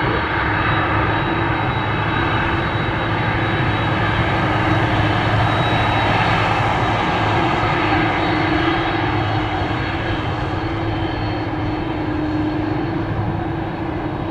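Jet aircraft engines running steadily, with a high turbine whine over the rush of the engines, swelling a little midway and easing near the end.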